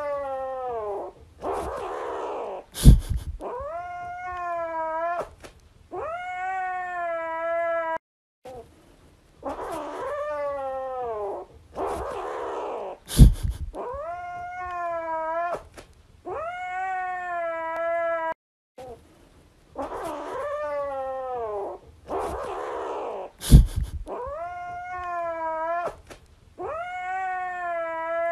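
Cat meowing in long, drawn-out calls, three or four every ten seconds, with a sharp loud knock among them. The same sequence repeats almost identically three times, as in a looped clip.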